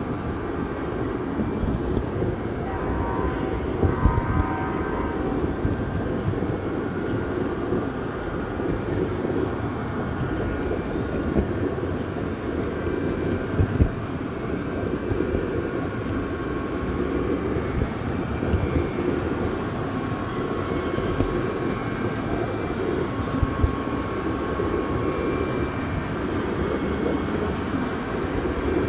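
Steady rumble of a moving train, broken by a few sharp knocks, with a brief faint squeal a few seconds in.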